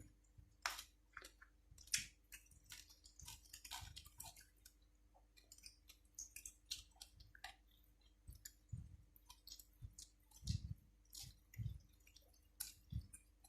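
Faint close-up eating sounds: a person chewing, with many irregular wet mouth clicks and smacks and soft low thumps.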